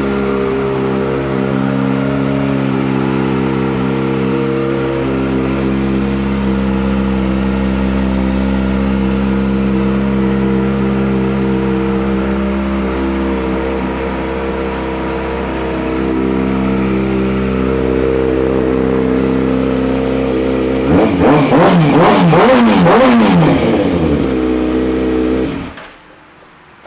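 2012 Kawasaki ZX-6R's inline-four engine, fitted with a Two Brothers aftermarket exhaust, idling steadily. About three-quarters of the way in it is revved with several quick throttle blips, then shut off suddenly near the end.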